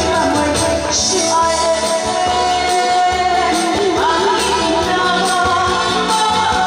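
Pop song with a woman singing over loud backing music and a steady beat.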